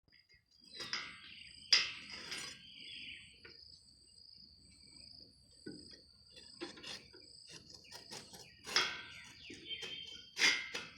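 Steady high insect trill, typical of crickets, with scattered sharp knocks and clanks; the loudest knocks come under two seconds in and near the end.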